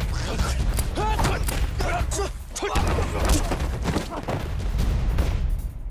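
Men grunting and yelling in short strained cries as they grapple and tumble down a dirt slope, over continuous battle gunfire and a steady low rumble.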